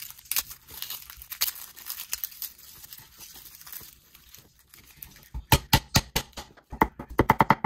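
Garlic deep-frying in hot oil, a crackling sizzle with many small pops. About five and a half seconds in, a rapid run of sharp knocks starts and quickens to about ten a second.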